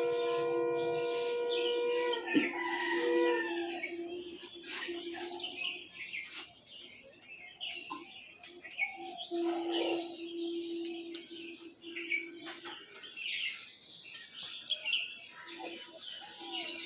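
Many small birds chirping busily throughout. A steady tone with overtones stops about two seconds in, a lower steady hum comes and goes later, and there is one sharp knock about six seconds in.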